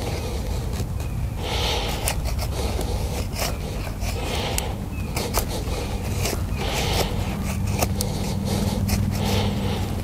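Fixed-blade knife shaving curls down a split stick of wood to make a feather stick: repeated short scraping strokes, about one every second or two. A low steady hum runs underneath, louder in the last few seconds.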